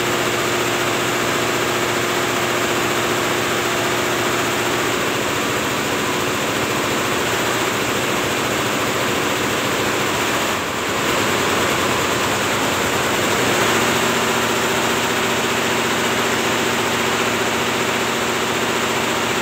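Multi-head computerised embroidery machine running, its many needle heads stitching at speed in a dense, steady mechanical clatter with a steady hum underneath.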